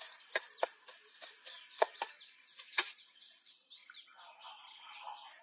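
Small birds chirping in short, high notes over a steady high insect drone, with several sharp clicks, the loudest about two and three seconds in.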